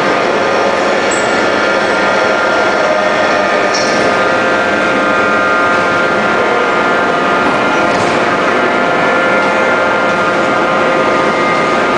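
Heavy forging-shop machinery running steadily: a loud, even drone with several steady whining tones and no hammer blows. There is a brief high click about four seconds in.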